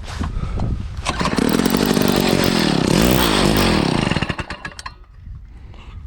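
Gas ice auger engine catching after a pull-start, running for about three seconds with its revs dipping and rising, then dying out. It won't keep running: the owner blames a carburetor adjustment screw and thinks it needs a carburetor kit.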